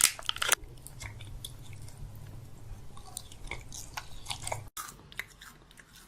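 Close-up chewing and mouth sounds of someone eating, with soft crunches and scattered clicks after a brief louder burst at the start.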